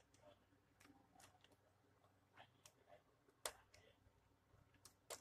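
Near silence with a few faint, irregular clicks, the sharpest about three and a half seconds in.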